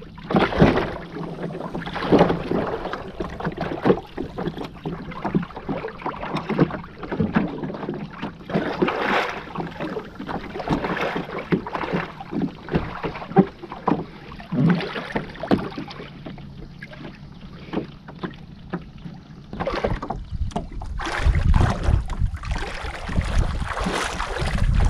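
Water splashing and lapping around a moving kayak, in many short irregular splashes. From about twenty seconds in, wind buffets the microphone.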